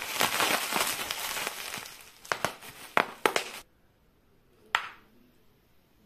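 Plastic bubble wrap crinkling as it is unwrapped by hand, with a few sharp snaps, stopping after about three and a half seconds. A single sharp click follows about a second later.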